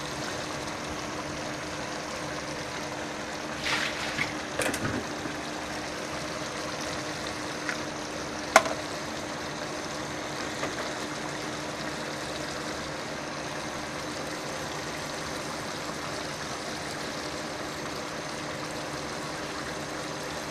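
Mixed vegetable curry of French beans, potato and brinjal simmering in a pot on a gas stove: a steady bubbling hiss. A few short knocks come about four to five seconds in, and one sharp click a little later.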